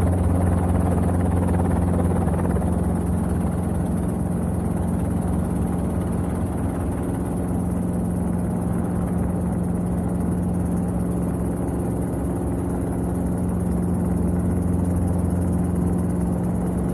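Robinson R22 helicopter heard from inside its cabin in flight: the piston engine and two-blade rotor make a steady, unbroken drone with a low hum. It grows slightly louder near the end as the helicopter comes down low over the grass.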